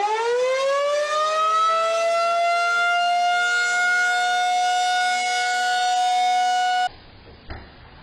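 Tornado warning siren winding up from a low pitch to a steady, loud wail, with two pitches sounding together. It cuts off abruptly about seven seconds in.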